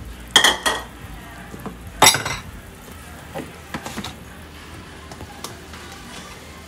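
Kitchen dishes clinking and knocking: two ringing clinks about half a second in, a louder sharp knock about two seconds in, then a few light taps.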